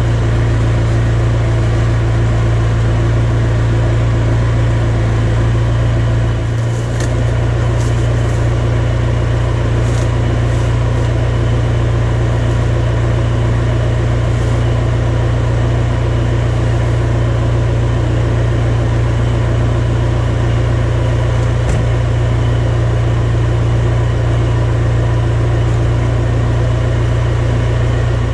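Loud steady mechanical hum of a running motor or machine, unchanging throughout, with a few faint clicks about a quarter to halfway through.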